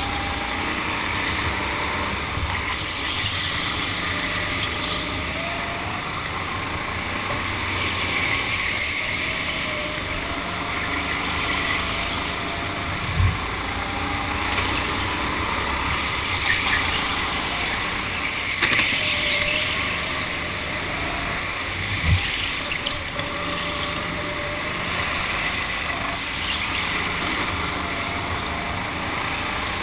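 Indoor go-kart heard from on board at speed: a steady rush of motor, tyre and wind noise, with a faint whine that rises and falls as the kart accelerates and slows through the corners. Two short low thumps come in the middle stretch.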